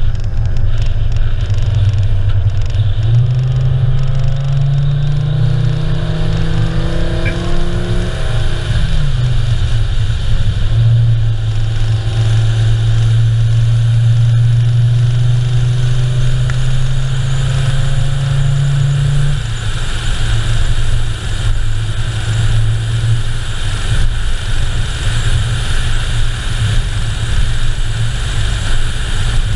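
A car driving at steady speed on a paved road: a constant hum of tyre and wind noise with the engine's steady drone on top. The drone drops in pitch about eight seconds in, holds, then fades out about twenty seconds in.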